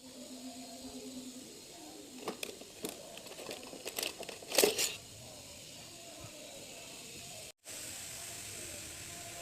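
Rustling, crinkling and clicking of things being handled, with a louder crackling burst about four and a half seconds in, over a faint steady hiss.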